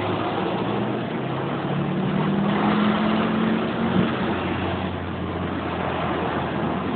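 Car engine running with a steady rush of road noise, heard from inside the car; the engine pitch rises a little about two seconds in and eases back after about four seconds.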